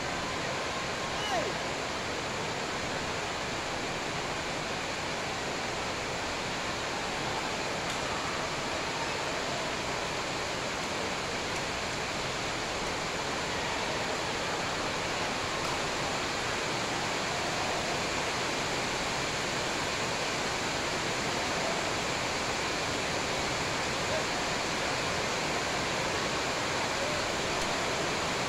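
Steady, even rushing noise of a large indoor badminton hall, with faint voices underneath and a couple of faint knocks, the first about a second in.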